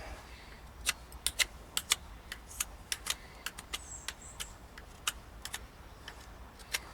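Small handheld carving knife paring green oak heartwood: irregular short, sharp clicks, a few a second, starting about a second in, as the blade takes small cuts from the tough timber.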